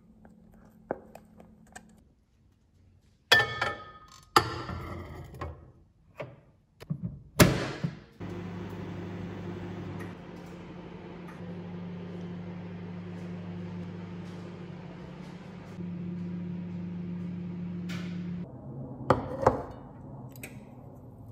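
Knocks and clunks of a plate being put into a microwave oven and its door shut, then the microwave oven running with a steady low hum for about ten seconds before it stops, followed by more clunks as the door is opened.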